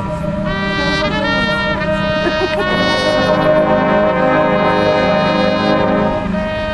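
High school marching band's brass section playing loud sustained chords, with a quick rising run of notes about a second in.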